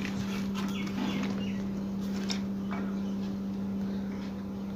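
A steady low hum, with a few faint bird chirps over it.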